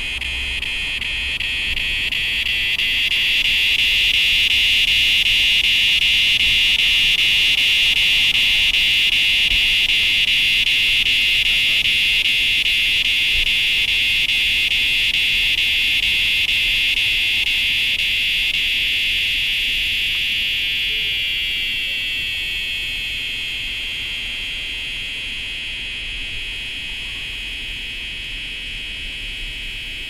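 Cicada chorus: a high-pitched buzzing drone that swells over the first few seconds, holds loud, then fades down about two-thirds of the way through, dropping slightly in pitch as it fades.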